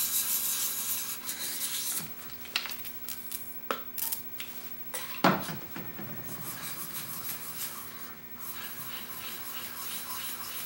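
Steel block plane blade rubbed flat on a wet coarse diamond sharpening stone: a rapid back-and-forth scraping of metal on diamond plate as the blade's back is flattened. The strokes are louder for the first couple of seconds, then quieter. A few sharp clicks come in between, the loudest about five seconds in.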